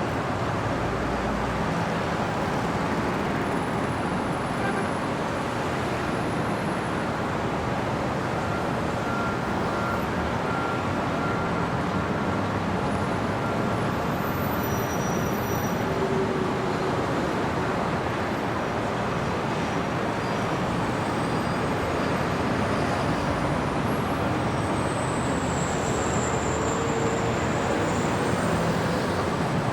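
Steady city street traffic: a continuous wash of passing cars and heavier vehicles. A faint high whine comes and goes near the end.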